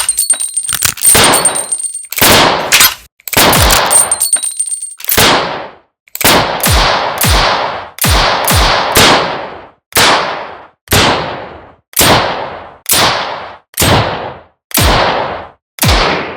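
Revolver gunshot sound effects: a quick run of overlapping shots with a thin high ringing tone beneath them for the first five seconds or so, then single shots about once a second, each with a decaying tail.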